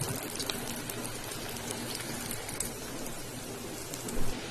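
Carrot vadas deep-frying in hot oil: a steady crackling sizzle with fine pops. A brief louder thump near the end.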